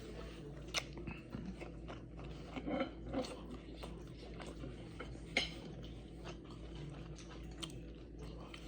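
A person chewing and biting food close to the microphone, with a few sharp clicks scattered through.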